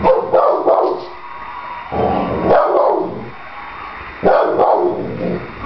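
Soft-coated wheaten terrier barking in three bouts of quick barks about two seconds apart.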